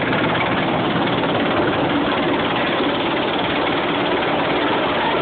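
AgustaWestland Merlin (AW101) helicopter approaching and hovering in to land, its rotors and turbines making a steady, loud rush of noise.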